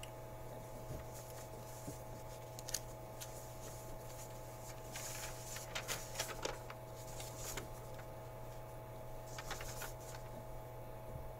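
A sheet of paper being handled and rustled in a few short crackling bouts, over a steady low electrical hum.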